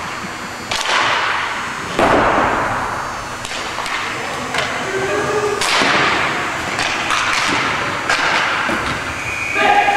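Hockey game play: sharp cracks of sticks on the puck and the puck banging into the boards, three loud hits among smaller clicks, each ringing out in a hard-walled rink. Players shout near the end.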